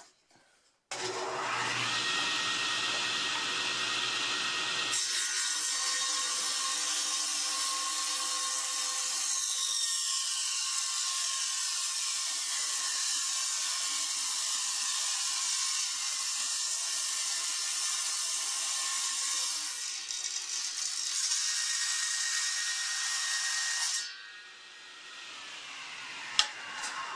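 Delta contractor-style table saw running, coming in suddenly about a second in, its sound changing about five seconds in. It drops off sharply near the end and fades as it winds down, with a couple of clicks.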